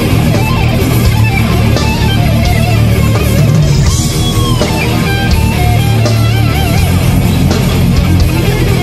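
Death metal band playing live: distorted electric guitars, bass guitar and drums, loud and dense throughout. Around the middle a high lead line bends up and back down, then wavers with vibrato.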